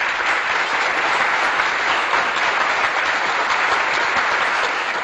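A crowd applauding: dense, steady clapping of many hands.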